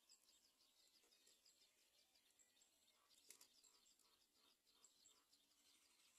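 Faint, rapid bird chirping: many short high chirps a second, with one sharp click a little past halfway.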